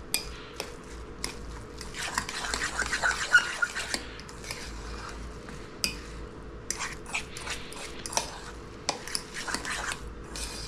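A fork stirring a moist vegetable and breadcrumb mixture in a stainless steel bowl, its tines scraping and clinking against the metal, with a denser run of scraping about two to four seconds in.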